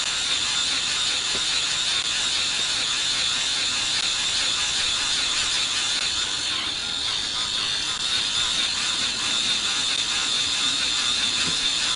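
Fuel pump running steadily, drawing fuel back out of the RC helicopter's tank through the clunk line; the clunk line is working.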